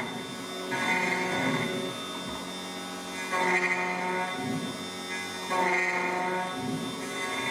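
SEC E9 key cutting machine running with a steady motor hum while its cutter works a tubular key blank, coming back roughly every two seconds in louder passes of about a second each.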